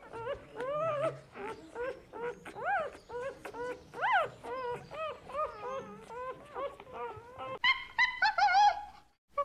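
Animal whimpering: a quick string of short, whining calls that rise and fall in pitch, several overlapping. A louder, higher-pitched run of calls comes near the end and cuts off suddenly.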